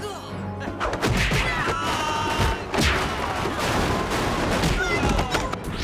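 Rapid barrage of martial-arts fight sound effects: dense hits and crashes in quick succession, starting about a second in.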